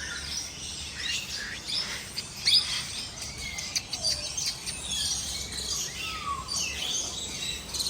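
Captive parrots and lories calling: a scatter of short, high chirps and squeaks, overlapping, with a few sliding whistles.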